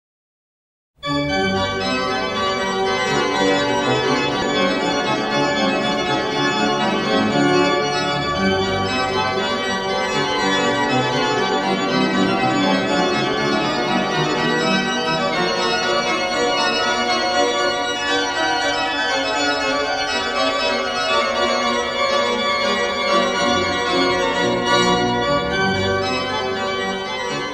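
Pipe organ playing, many notes sounding together. It starts suddenly about a second in.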